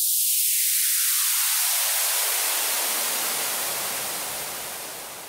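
Synthesized white-noise sweep in an electronic music track: a loud hiss that starts abruptly and deepens as its low end slides steadily downward, then fades out near the end.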